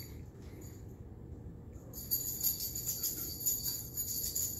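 Small bell on a cat's collar jingling as the cat moves, a shimmering high ringing that comes in strongly about two seconds in and stops just before the end.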